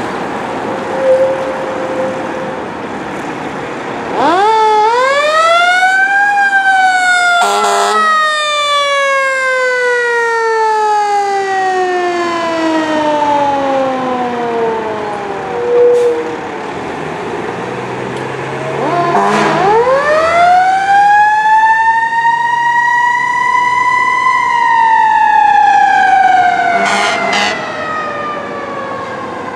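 Fire engine siren winding up to a high pitch and falling away slowly, twice, with a few short blasts cutting in over it. Road traffic runs underneath.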